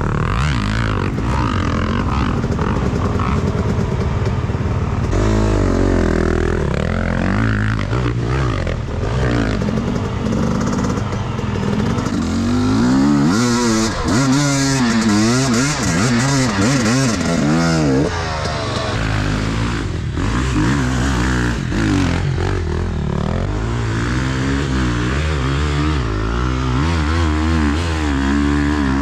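Enduro motorcycle engine revving up and down under load, its pitch rising and falling over and over as the throttle is worked.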